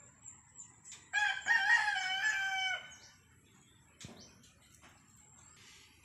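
A rooster crowing once, starting about a second in and lasting a little under two seconds.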